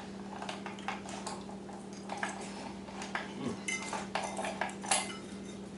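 A metal fork tapping and scraping on a ceramic dinner plate in irregular light clicks, with a steady low hum underneath.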